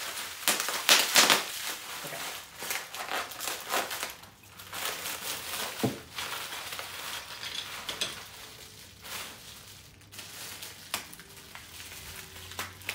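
Plastic bubble wrap crinkling and crackling as it is pulled off small parts by hand, in irregular bursts that are densest in the first couple of seconds and thin out after.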